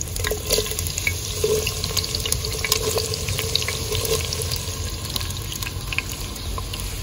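Sliced onions sizzling as they fry in hot oil in a handi, a steady dense sizzle full of small crackles, with a low rumble underneath.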